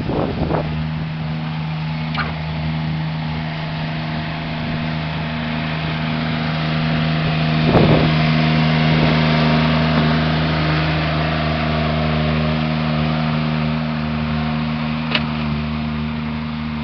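Mini skid steer's engine running at a steady speed, with a sharp knock about eight seconds in and two lighter ones around it.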